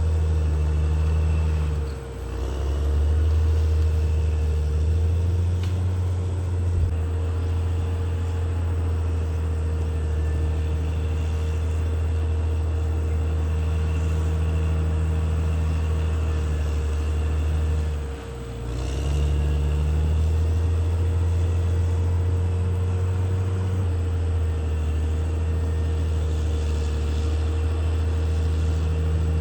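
CAT D6R XL bulldozer's diesel engine running steadily under load with a deep drone, briefly dipping twice, once about two seconds in and again about two-thirds of the way through.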